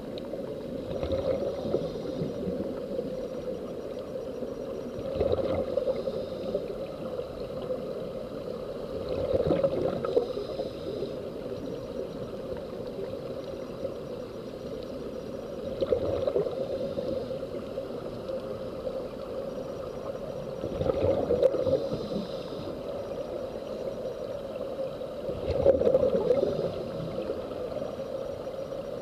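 Muffled underwater bubbling and gurgling from air escaping the sea-walk diving helmets, swelling in bursts about every four to six seconds.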